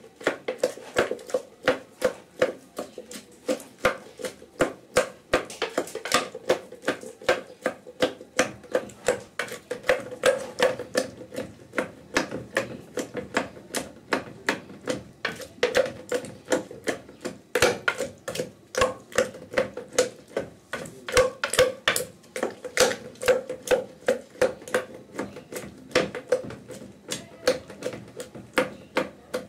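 Wooden pestle pounding tomatoes and chopped greens in a mortar: a steady run of knocks, about three strikes a second.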